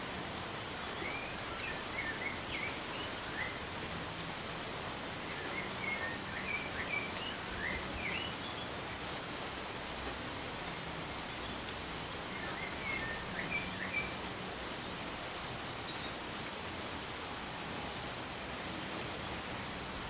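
Steady hiss of rain with a small bird chirping in three short bouts of quick high chirps.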